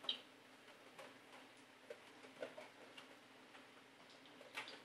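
Faint, scattered light clicks and taps as a phone motherboard is handled and set in place for chip work.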